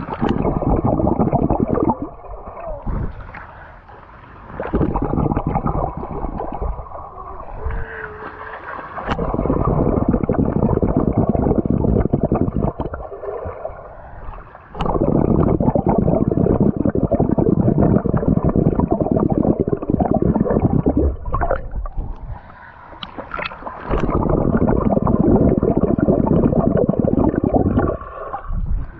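Underwater sound through a GoPro's waterproof body held below a swimming pool's surface: muffled rumbling and bubbling of water churned by swimmers kicking, in long loud stretches with quieter gaps between them.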